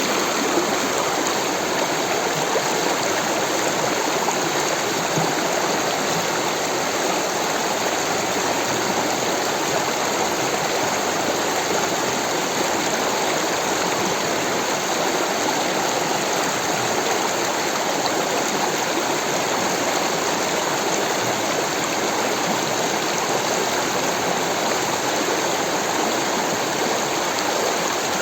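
Rushing water of a stream, a steady, even flow with no breaks or changes.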